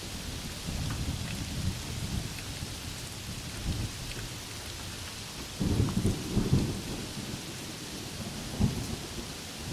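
Steady rain hissing, with thunder rumbling low underneath. The rumbling is loudest about six seconds in, and a shorter, sharper clap comes near the end.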